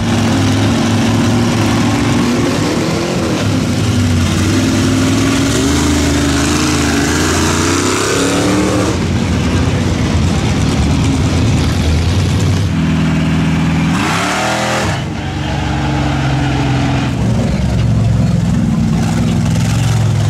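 Off-road 4x4 mud truck engine revving, its pitch rising and falling several times, under a steady rush of noise, with a brief dip and sweep in pitch about three quarters of the way through.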